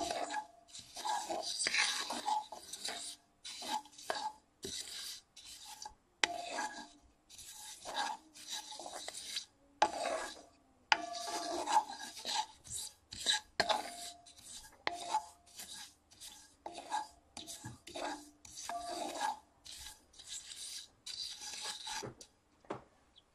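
A wooden spatula scraping and stirring sesame seeds around a cast-iron skillet as they dry-roast, in repeated irregular strokes with short pauses between them; the seeds rasp and rustle against the iron.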